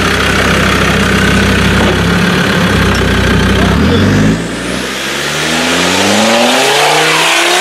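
Land Rover engine running steadily at low revs, then about four seconds in it revs up, the pitch climbing steadily.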